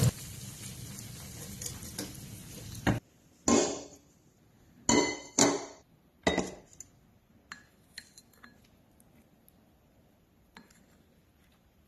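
Dishes and cutlery clinking and clattering, several sharp knocks followed by fainter ticks, after a steady hiss that cuts off about three seconds in.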